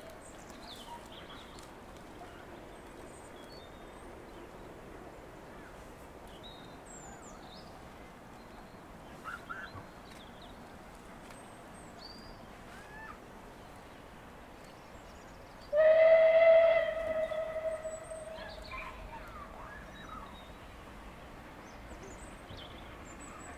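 Steam locomotive whistle blown once, a single steady high note lasting about two seconds, starting suddenly about two-thirds of the way through.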